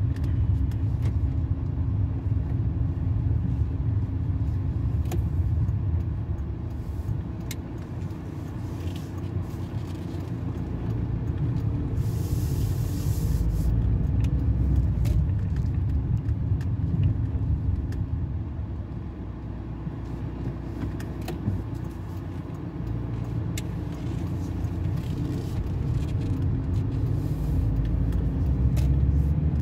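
Steady low rumble of a car driving, heard from inside the cabin, with a brief hiss about twelve seconds in.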